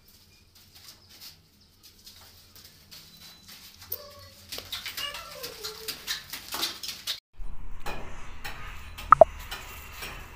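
Wet sand-cement mortar being thrown by hand onto a ceiling: a quick run of soft splats, with a few short pitched calls like a bird's behind it. About seven seconds in, the sound cuts to a steady low hum and one short, sharp rising tone.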